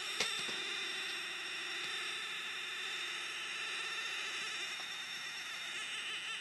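Homemade mechanical-TV camera's phototransistor video signal, pitch-shifted, played back as audio: a steady electronic buzz of many tones, with a single click just after the start.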